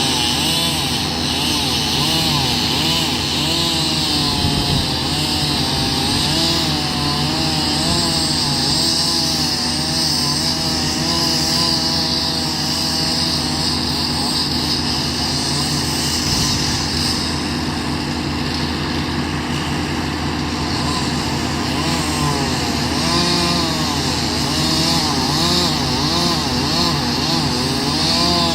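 Two-stroke chainsaw running hard and cutting near the base of a tree, its pitch wavering up and down the whole time, over a steady lower engine drone.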